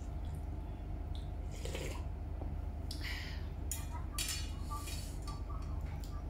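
Eating sounds: chewing and slurping soup, with a porcelain spoon and chopsticks clinking against the bowls, over a steady low hum.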